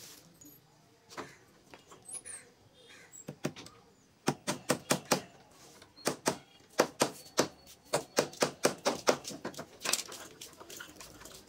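Hammer striking a zigzag sofa spring's metal clip onto a wooden frame: a quick run of sharp knocks, about three or four a second, starting about four seconds in, with a few scattered knocks before it.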